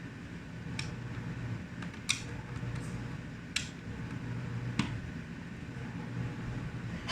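Four sharp clicks of small hard parts being handled during laptop disassembly, spaced about a second or so apart, over a steady low hum.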